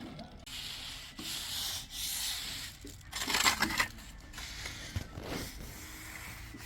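Gritty scraping and rubbing in a few long strokes, loudest about three seconds in.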